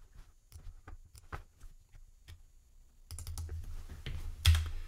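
Scattered light clicks of a computer mouse and keyboard, several in the first three seconds, while a box is drawn in KiCad schematic software. A louder stretch of noise follows near the end, with a sharper sound just before it ends.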